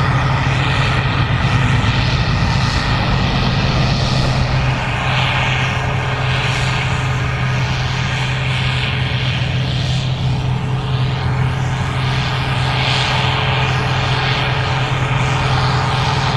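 Gleaner R65 combine running steadily while harvesting corn: a continuous low engine drone with the rushing noise of the machine over it.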